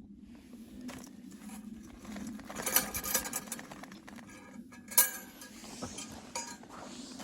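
Cookware and utensils clinking and knocking, with a burst of clattering about two and a half seconds in and one sharp clank about five seconds in.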